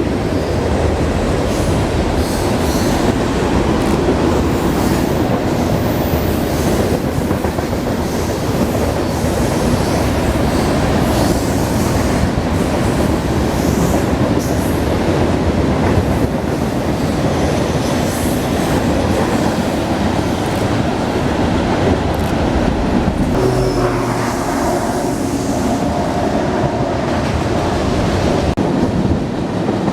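A train passing close by: a loud, continuous rumble of wheels on rail, with brief high squeals here and there and a few faint steady tones joining it near the end.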